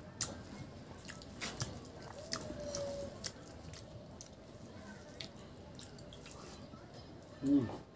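Eating by hand: fingers squishing rice and pork curry, then wet mouth clicks and chewing, heard as scattered short sharp clicks. A brief louder, lower sound comes near the end.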